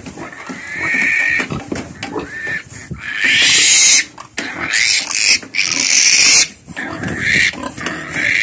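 Newborn piglet squealing repeatedly while held tight by the legs, a distress reaction to being restrained. The squeals turn into long, harsh screams about three seconds in and again about five seconds in, the loudest part.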